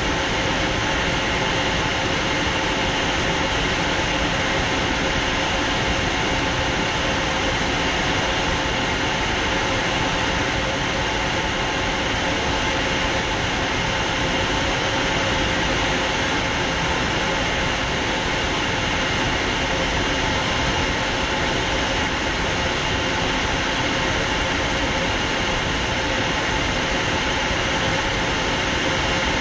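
Cockpit noise of a Fouga Magister jet trainer in flight: its twin Turbomeca Marboré turbojets and the airflow over the canopy make a steady rushing drone with a few steady whining tones on top.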